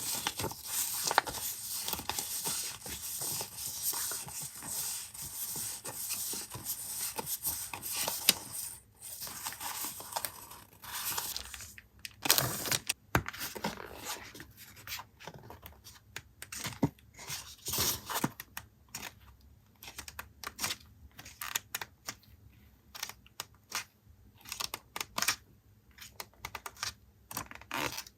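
Paper and plastic packaging being handled: dense continuous rustling and crinkling for the first several seconds, then sparser rustles, light taps and clicks as items are picked up and set down.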